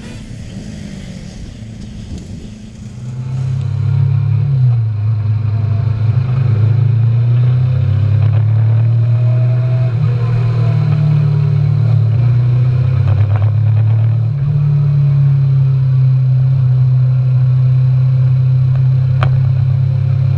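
Kawasaki Ninja 500R's parallel-twin engine running at a steady throttle while riding. It gets much louder about three seconds in and holds a low, even hum, shifting pitch slightly a few times.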